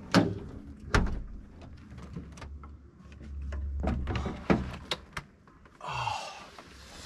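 A camper van's door and gear being handled inside the van: a few sharp knocks and thuds, with a rustle near the end.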